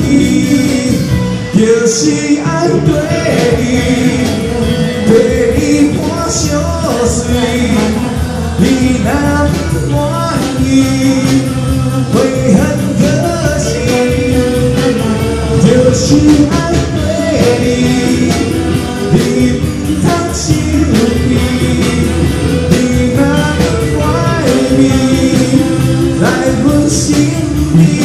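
Live band playing with singing: electric guitars, a drum kit and vocals sung into microphones.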